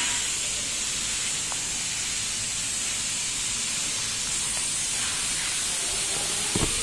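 Steady, even hiss of background noise, with a short low bump near the end.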